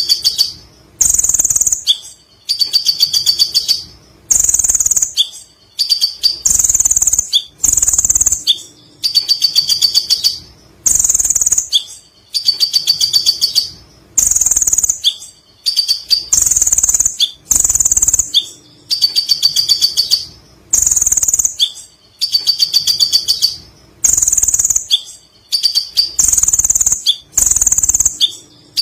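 Sunbird (kolibri ninja) singing a high, rapid chattering song in phrases about a second long, repeated every two seconds or so.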